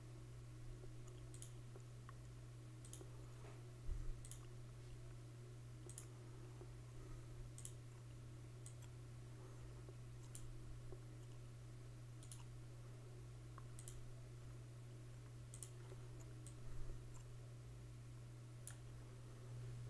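Faint computer mouse clicks, about a dozen spaced a second or two apart, over a steady low hum.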